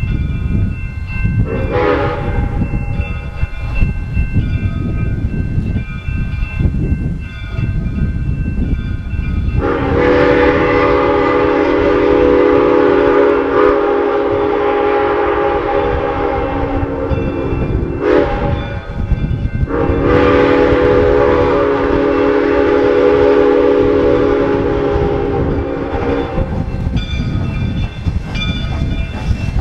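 Soo Line 1003's steam chime whistle: a short toot, then two long blasts, over the steady rumble of the moving train.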